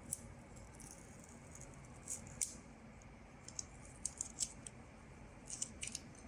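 Faint scattered ticks and crinkles of a plastic transfer film being rubbed onto a dish and peeled off, in small clusters.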